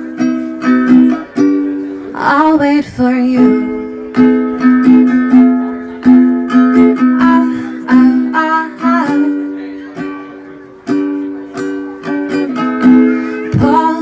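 Ukulele played as a song accompaniment, plucked and strummed chords in a steady rhythm, with short sung phrases about two seconds in and again around eight seconds.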